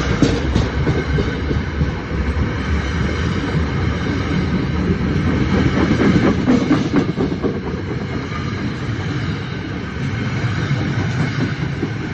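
Electric commuter train rolling past, its wheels clicking over the rail joints.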